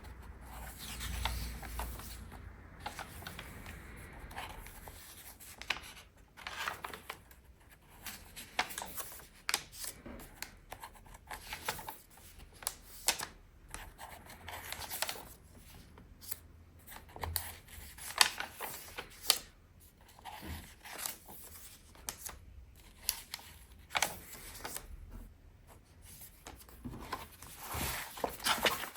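Sketchbook pages being turned by hand: irregular rustles and swishes of paper, one after another.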